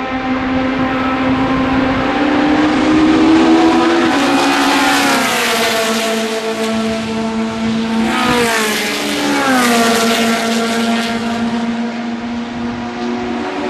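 Historic Formula 1 car engine running hard at high revs, its pitch climbing and dropping several times.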